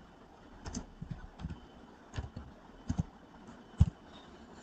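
Computer keyboard keystrokes: about eight separate, unevenly spaced taps as a command is typed and entered, the loudest near the end.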